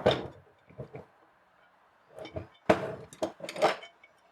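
Metal drill press parts clinking and knocking as a gear and spacer are handled and fitted into the table assembly: a few light clicks, then a cluster of sharper knocks, the loudest about two thirds of a second in from the 2 s mark.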